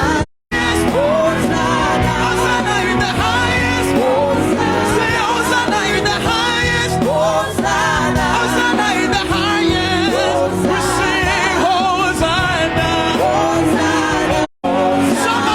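Church choir singing a gospel song with band accompaniment. The sound cuts out briefly twice, once just after the start and once near the end.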